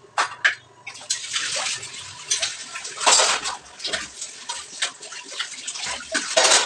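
Tap water running into a kitchen sink while dishes are washed by hand, starting about a second in, with clinks and knocks of dishes and utensils knocking together.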